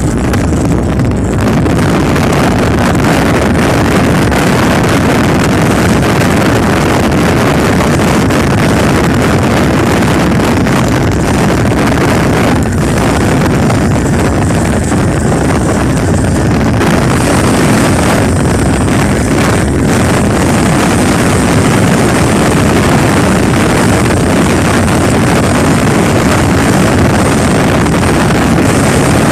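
Steady, loud running noise from inside a vehicle travelling along a rain-wet highway: the engine drones while the tyres hiss on the wet road and wind buffets the microphone.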